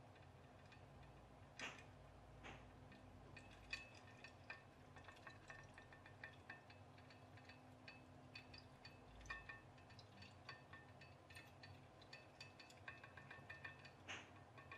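Near silence with faint, irregular clicks and ticks from a tea-light-heated pop-pop boat, its coiled aluminium tube boiler running as the boat moves across a bowl of water.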